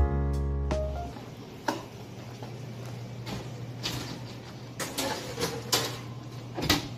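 Background music ends about a second in. A steady low hum follows, broken by several sharp clicks and knocks, the loudest near the end.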